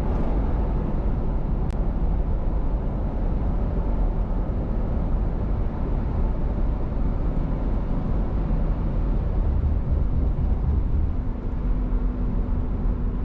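Steady rumble of a vehicle driving at highway speed: road and engine noise, with a faint steady hum coming in about halfway through.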